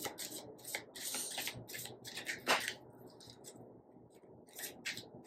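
Deck of cards being shuffled and handled by hand: a run of quick, irregular papery flicks, thinning out about three seconds in, with a few more near the end.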